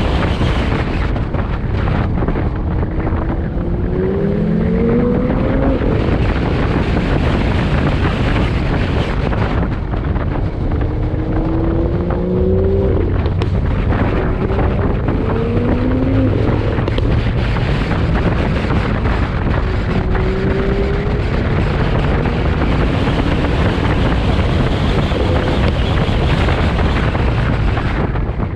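Chevrolet C8 Corvette's 6.2-litre V8 accelerating again and again, its pitch rising, breaking off and climbing anew, under heavy wind and road noise on the microphone.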